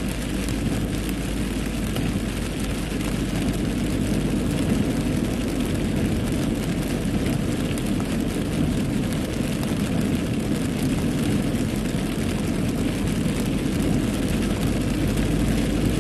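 Steady rush of heavy rain on a moving car together with its tyres running through standing water on a flooded road, heard from inside the car.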